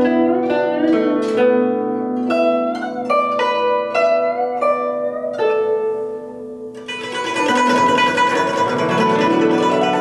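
Scarlet Bird (Zhuque) guzheng played with fingerpicks: single plucked notes ring out, several of them bent up or down in pitch. About seven seconds in they give way to a dense, ringing wash of rapidly repeated notes.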